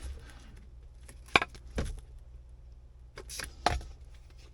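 Handling noise while sealing a hole with spray foam: a few sharp knocks and clicks, with a short hiss a little past three seconds in.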